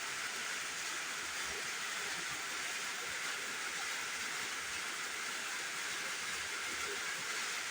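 Steady background hiss with no other sound: the microphone's noise floor in a pause between words.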